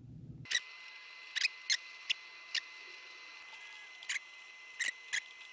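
About eight sharp, irregular clicks over a faint steady high-pitched whine, starting suddenly about half a second in.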